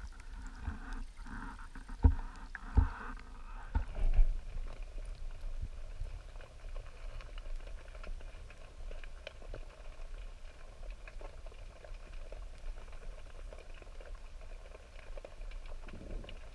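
Water sloshing and splashing around a diver at the sea surface, with a few heavy thumps against the camera housing in the first four seconds. Then, after the dive, muffled underwater ambience with faint scattered crackling clicks.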